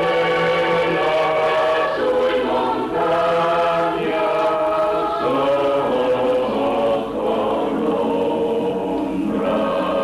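Choir singing an Italian mountain song (canto di montagna) a cappella, in slow held chords that shift every second or two.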